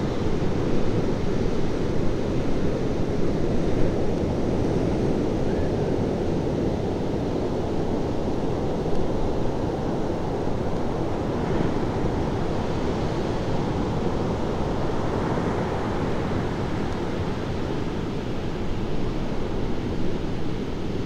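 Ocean waves breaking, a steady wash of surf noise, with wind buffeting the microphone.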